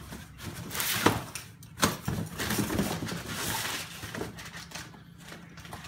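Crumpled brown kraft packing paper rustling and crinkling as it is pulled out of a cardboard shipping box, with a couple of sharp knocks in the first two seconds.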